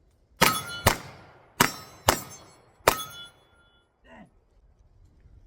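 Five pistol shots fired over about two and a half seconds, with steel targets ringing briefly after the hits.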